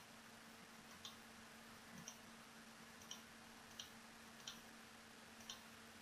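Faint computer mouse button clicks, about six of them, roughly one a second, over a low steady hum.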